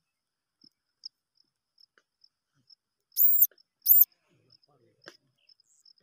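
Two loud, high-pitched squeaks about half a second apart, each rising and falling in pitch, from newborn wild rat pups in a grass nest. A steady run of faint, high chirps goes on throughout.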